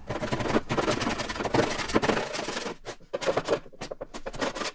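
Steel hand scraper scraping torch-softened sound deadener off a car's sheet-metal floor pan, in irregular strokes.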